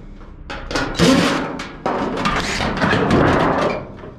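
Knocks and rough clattering from a clothes dryer's sheet-metal cabinet being worked apart by hand: a sharp knock about a second in, then a longer stretch of scraping and rattling.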